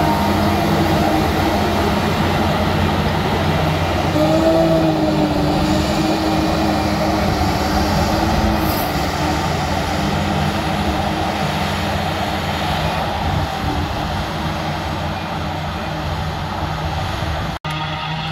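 John Deere 9800i forage harvester's V12 diesel running steadily under load while it picks up and chops grass, with the tractor pulling the trailer alongside. The sound drops out for an instant near the end.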